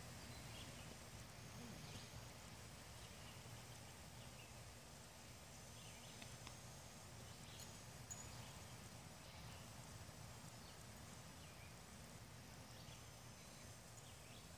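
Near silence: faint outdoor background hum with scattered faint chirps every second or two.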